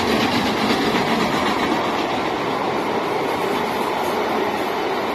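Steam-hauled express train passing close by: LNER A3 Pacific 'Flying Scotsman' goes by at the start, then its line of carriages rolls past, giving a steady, loud running noise of wheels on rail. It is slightly louder in the first second or so.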